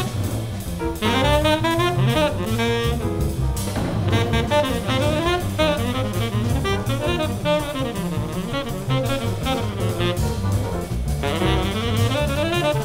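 Live small-group jazz: a tenor saxophone plays melodic phrases over plucked upright double bass and a drum kit with cymbals.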